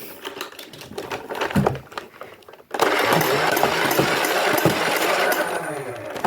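Motorized Nerf blaster whirring for about three seconds, starting about halfway through after a few clicks and knocks of handling, then winding down.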